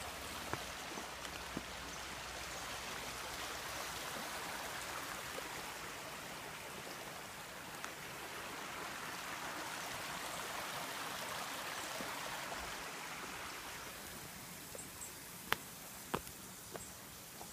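Stream water running steadily over rocks, easing slightly near the end. A few sharp clicks come in the last couple of seconds.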